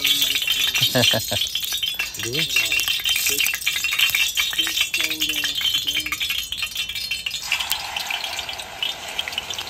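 Hot cooking oil crackling and spattering as rain drops fall into it. A steadier frying hiss comes in near the end.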